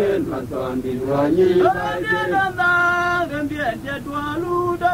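A man singing a chant-like song, quick syllables running into long held notes, with one note held for about a second near the middle.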